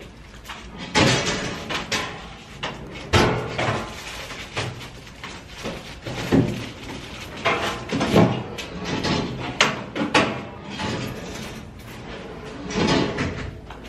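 Metal pull-down parcel drop hopper being opened and shut several times as packages are fed in, giving a series of clanks, scrapes and bangs a second or few apart.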